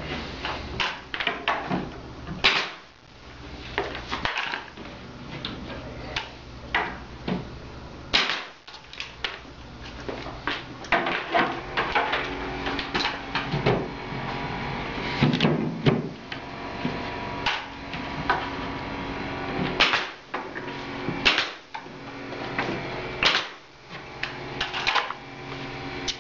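Wooden cabinet panels knocking and clattering as a cabinet box is fitted together: irregular sharp knocks and clicks, some louder than others.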